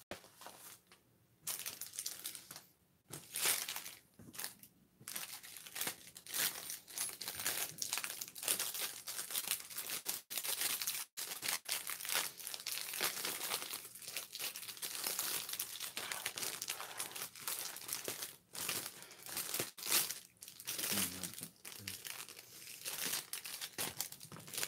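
Clear plastic packaging crinkling and rustling as it is handled, in irregular crackles with a few short pauses in the first seconds.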